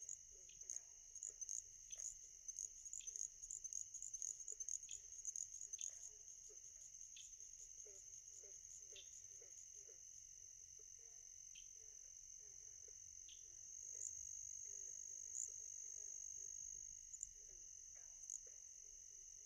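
Crickets trilling steadily: a continuous high-pitched drone, with faint scattered ticks and chirps that are thickest in the first few seconds.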